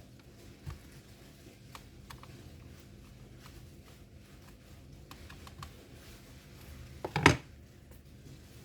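Small clicks and taps from a screwdriver and small laptop parts being handled, over a steady low hum, with one louder clatter about seven seconds in.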